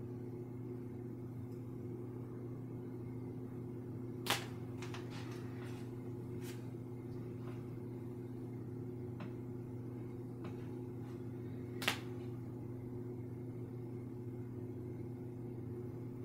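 A steady low electrical hum, with two sharp clicks about four and twelve seconds in and a scatter of fainter taps between them, from painting tools being handled.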